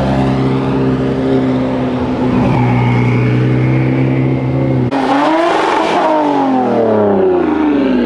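Sports-car engines and exhausts as cars pull away one after another. A steady engine note runs for about five seconds. Then a second engine's pitch rises and falls, and it slides down as the car accelerates off.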